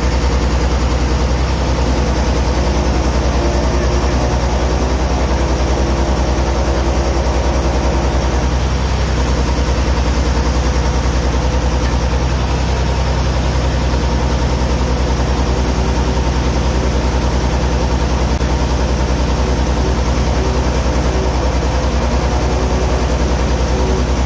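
A heavy diesel engine idling steadily, with most of its sound in a low, even rumble.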